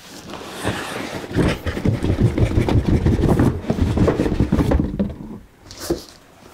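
Cardboard filament boxes being pulled out of a large shipping box and handled: a dense run of scraping and rustling with small knocks, fading about five seconds in, then a single tap.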